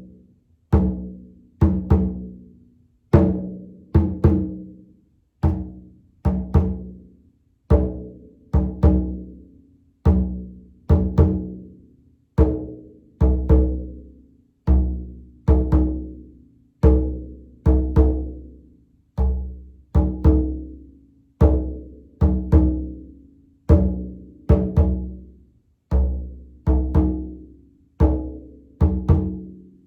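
Frame drum struck by hand in a steady, slow beat, each deep stroke ringing out and fading before the next.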